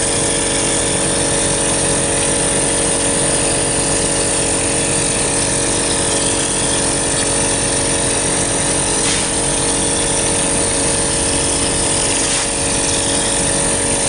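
2B mortar spraying machine running steadily: a constant machine drone with several held tones under a dense hiss of compressed air and mortar leaving the spray gun as it is sprayed onto a brick wall.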